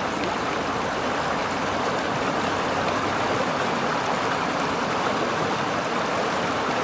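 Mountain creek rushing steadily over rocks: an even, unbroken rush of running water.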